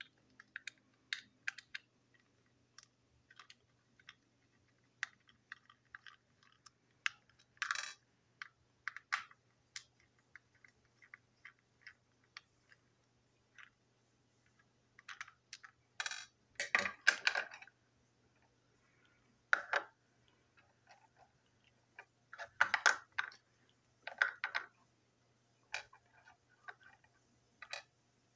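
Small plastic clicks, taps and scrapes as a plastic TrackMaster toy train truck is unscrewed with a small screwdriver and pulled apart into body, chassis and wheelsets. Scattered light ticks with a few louder clatters, the biggest about halfway through.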